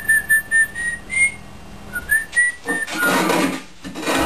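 A person whistling a short tune of clear, separate notes that step up and down in pitch, followed near the end by a couple of rushing bursts of noise.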